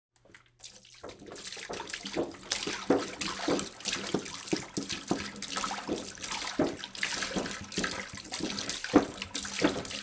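Water pouring in a stream and splashing. It starts about a second in and builds up over the next second or so, then runs on unevenly.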